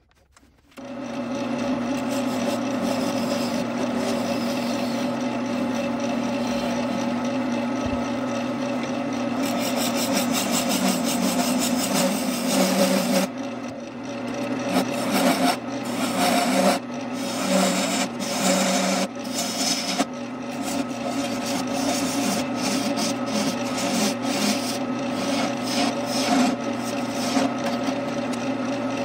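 Wood lathe running with a steady hum while a turning tool scrapes and cuts into a spinning redbud branch blank, a rough rasping hiss of shavings being taken off. In the second half the cuts come in short passes, the scraping swelling and dropping off repeatedly.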